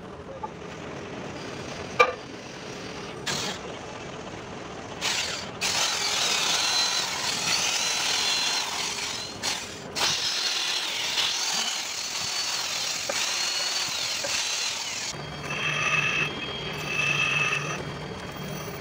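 Hand-held electric drill running against a diesel engine cylinder head to clean it, with a high whine that rises and falls as the load changes, from about a quarter of the way in until past the middle. A sharp knock comes about two seconds in, and a pulsing beep follows near the end.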